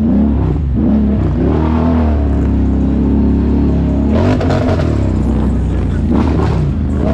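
ATV engine revving, its pitch rising and falling as the throttle works, with a rush of higher noise joining about four seconds in.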